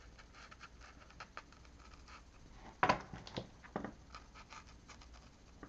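White acrylic paint marker scratching and dabbing faintly on a paper journal page, with a few louder taps about three seconds in.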